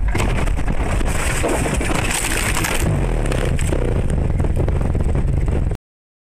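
A car running off the road into brush and branches: a sudden, loud, continuous rough noise packed with small knocks, which cuts off abruptly near the end.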